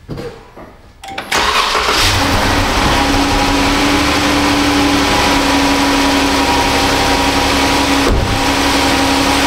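A 2018 Chrysler 300's 3.6-litre V6 started for the first time after a radiator replacement and coolant refill, catching about a second in and settling into a steady idle.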